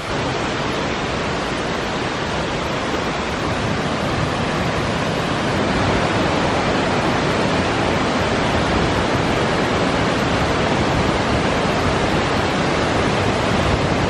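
Steady rushing of the Kuhfluchtwasserfall, a multi-tier mountain waterfall, and its stream cascading over boulders, a little louder from about six seconds in.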